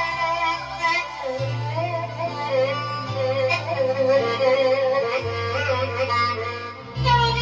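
Korg Pa5X arranger keyboard playing Turkish-style traditional music: an ornamented melodic lead over held bass notes that change about every second and a half to two seconds, with the fuller accompaniment coming back in near the end.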